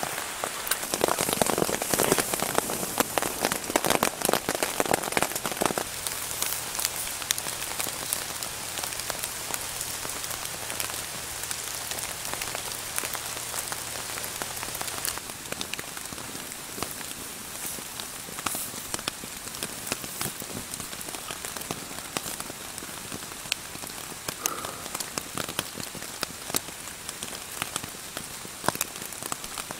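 Steady rain falling on a tarp shelter, with individual drops ticking sharply on it. The rain is heavier and louder for the first six seconds or so, then settles.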